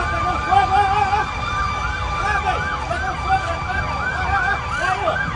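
Emergency-vehicle sirens in a fast yelp, several overlapping, each rising and falling about three times a second, over a low steady rumble.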